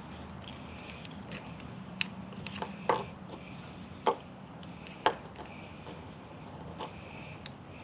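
Handling noise from splicing pump wiring: a handful of sharp clicks and taps of hands, wire and small parts, the loudest between about two and five seconds in, over a steady low hum.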